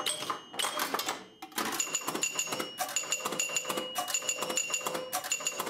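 Older pinball machine in play: rapid clicking of relays and scoring mechanisms, with chime bells ringing over them and a short lull about a second in.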